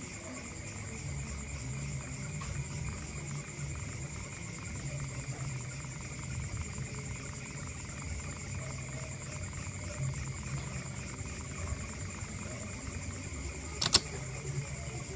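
Stepper motors of a homemade polar drawing CNC plotter running as it draws, a low buzz that keeps shifting as the moves change, over a steady high-pitched whine. A single sharp click near the end.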